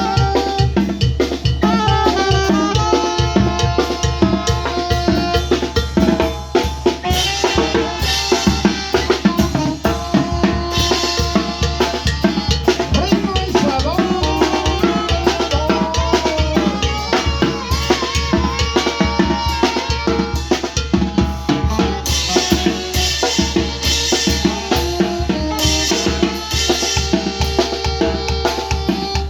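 Tamborazo band playing: a tambora bass drum and snare keep a steady, even beat under a brass melody of held notes, with cymbal crashes at several points.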